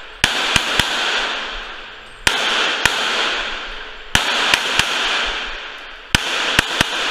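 Semi-automatic pistol firing in quick strings of two or three shots, four strings about two seconds apart, about a dozen shots in all. Each string is followed by a long echo off the indoor range's walls.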